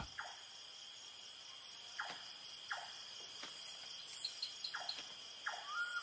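Night-time insect chorus: crickets chirring in a steady high-pitched drone. Short falling chirps from another animal break in every second or so.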